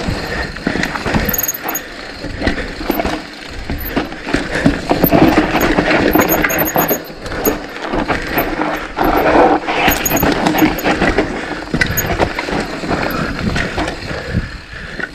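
Mountain bike ridden along a dirt trail: continuous rough tyre noise with many knocks and rattles from the bike over bumps, louder in a couple of stretches in the middle.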